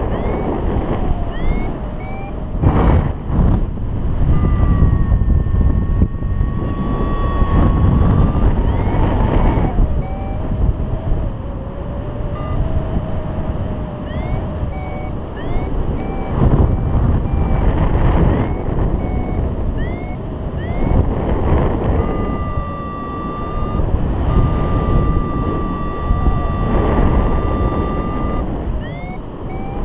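Paragliding variometer beeping: runs of short rising chirps, long held tones a few seconds in and again in the second half, and a lower wavering tone in the middle. Steady wind noise rushes on the microphone underneath.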